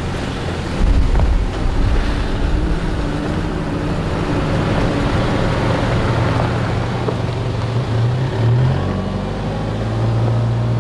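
Four-wheel-drive vehicles driving past slowly on a dirt track: a low engine hum that swells as one passes close, about eight seconds in, over a steady rush of wind on the microphone.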